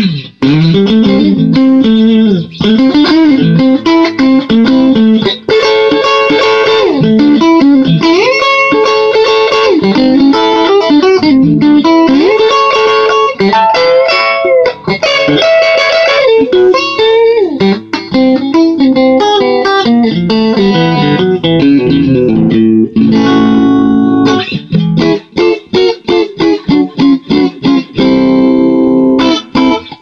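Electric guitar: a custom-built Telecaster with humbucker–single-coil–humbucker pickups, played through a small combo amp. Lead lines with sustained notes and string bends, turning about three-quarters of the way through into short, chopped, rhythmic chords.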